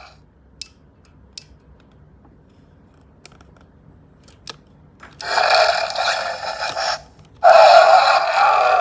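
Allosaurus toy playing its electronic roar through its small built-in speaker, twice: once about five seconds in, and again about half a second after the first ends. A few faint plastic clicks come in the quiet stretch before.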